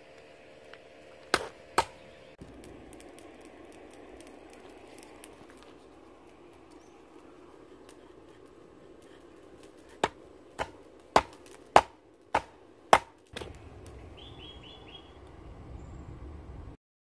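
Hand hammer striking red-hot steel flat bar on a small flat-bar anvil set into a wooden stump: two blows, then after a long pause a run of six blows about half a second apart.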